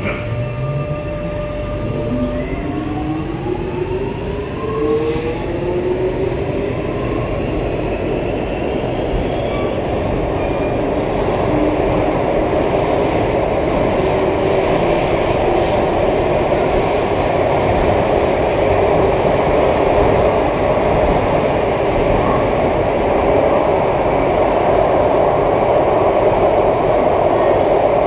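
Toshiba IGBT-VVVF traction inverter and motors of a C751A metro train pulling away from a station, heard inside the car: a whine of several tones climbs in pitch over the first five or six seconds of acceleration, then gives way to a steady rolling sound of wheels on rail in the tunnel that slowly grows louder.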